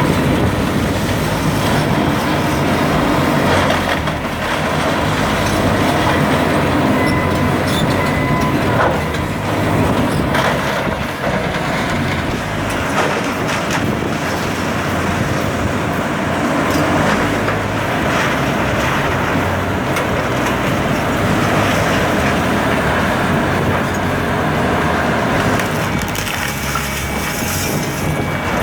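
Heavy demolition machinery running steadily while building material crunches and breaks, with scattered knocks and cracks.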